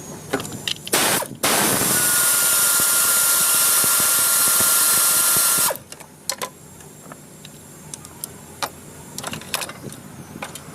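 An air-powered shop tool gives a short blast, then runs steadily for about four seconds with a loud air hiss and one steady whine, and stops abruptly. Light metal clicks and clinks follow.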